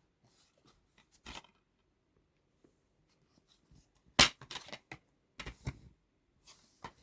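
A plastic DVD case and its packaging being handled, making scattered clicks and rustles. The loudest is a sharp click about four seconds in, followed by a few more close together.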